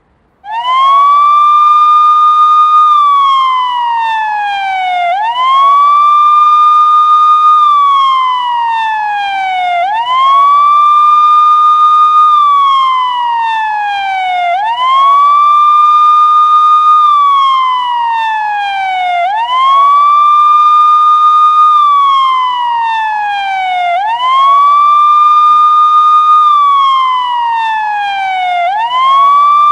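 US police car siren sounding its wail: the tone rises quickly, holds high for about a second and a half, then slides slowly down, repeating about every five seconds. It starts about half a second in.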